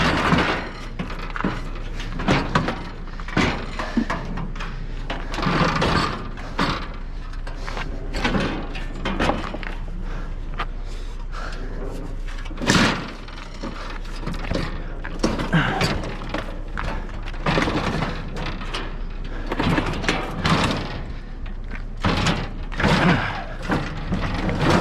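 Irregular knocks, clunks and scrapes of a heavy object being shoved and manoeuvred by hand.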